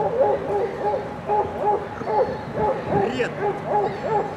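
A dog giving short, hooting, high barks over and over, about three a second.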